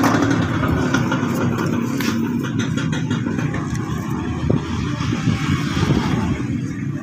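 Motorcycle engine running steadily, with a few light clicks about two seconds in.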